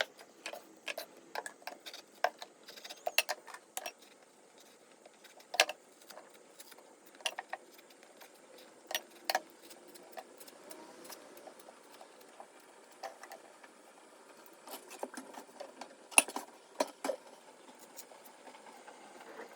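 Irregular light clicks and knocks of kitchenware being handled during breakfast preparation, with the sharpest knocks about five seconds in and again near sixteen seconds.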